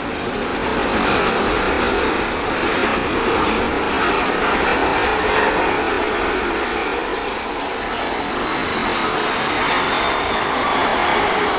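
Jet airliner on landing approach, its engines making a steady rushing noise, with a faint high whine coming in about eight seconds in.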